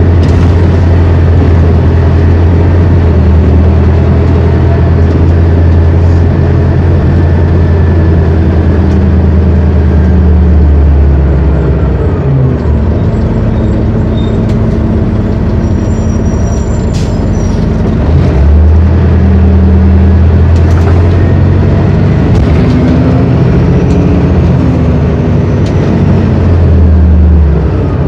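Detroit Diesel Series 50 inline-four diesel of a 1999 New Flyer D40LF city bus, heard from inside the bus while under way. The engine pulls steadily with its pitch stepping between gears, eases off for several seconds about halfway through, then pulls again until it eases off near the end.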